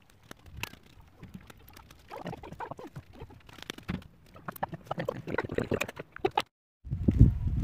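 Fresh willow rods rustling and crackling as they are bent and worked by hand into a woven willow basket, with runs of sharper taps and knocks that grow denser in the second half. The sound breaks off briefly near the end, then louder, heavier rustling and knocking starts.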